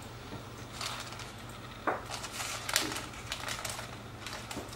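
A metal fork scraping and clicking against a baking tray lined with baking paper as cheese-topped cutlets are lifted off it, the paper crinkling under it: a string of short scrapes and clicks, the sharpest about two seconds in and near the middle.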